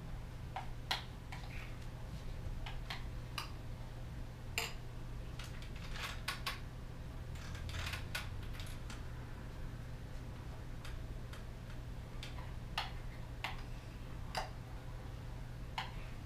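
A utensil clinking and scraping irregularly against a bowl as flatbread batter of flour, water and salt is stirred by hand.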